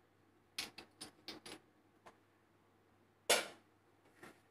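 Kitchen utensil clinking against a cooking vessel, as when ghee is spooned out for the biryani. A quick run of about five light taps, then one louder clank about three seconds in.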